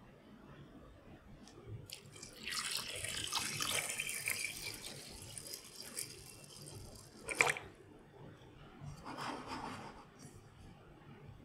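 Butterfly pea tea poured steadily onto raw rice in a pot for about five seconds, as the cooking liquid for blue rice. The pour ends with a sharp knock about seven seconds in, and a shorter, softer splash or swish follows about two seconds later.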